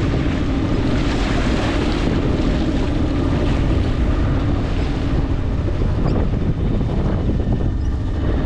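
Wind buffeting the microphone and choppy water slapping and rushing along a sailboat's hull, over the steady low hum of the boat's engine as it motors with the sails furled.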